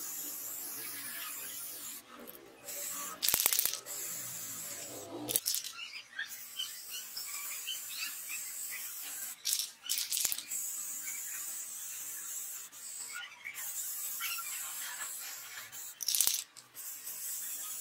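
Aerosol spray paint can hissing in several long sprays broken by short pauses, a few bursts louder than the rest.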